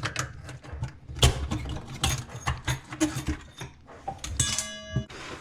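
Clicks, knocks and rattles of metal and plastic parts being handled under a bathroom sink as the old pop-up drain parts are cleared away. A metal part rings briefly about four and a half seconds in.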